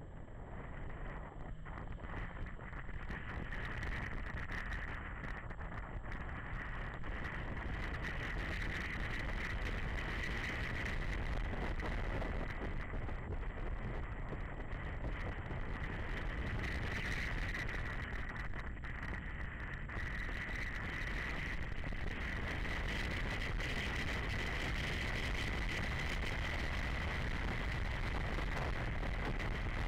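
Motorcycle riding along, its single-cylinder engine running under steady wind rush on the bike-mounted camera's microphone. The sound grows louder over the first few seconds, then holds steady.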